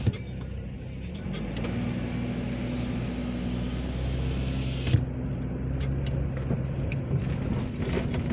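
Car engine and road noise heard from inside the cabin as the car pulls away and drives over the railroad crossing. The engine hum strengthens after a second or so, and there is a sharp knock at the start and another about five seconds in.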